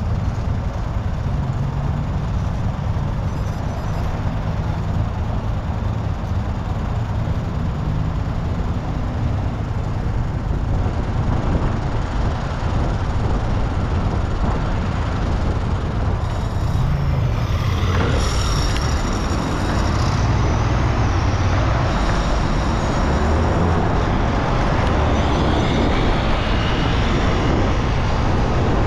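City road traffic heard from a moving bicycle: a steady low rumble of passing vehicles that gets louder about two-thirds of the way through.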